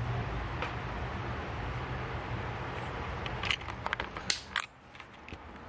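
A steady low hum, with a few sharp clicks and knocks of parts being handled about three and a half to four and a half seconds in.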